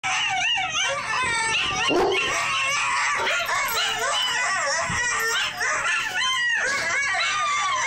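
Young Bouvier des Flandres dog howling, in wavering howls that rise and fall in pitch, mixed with yips and whimpers.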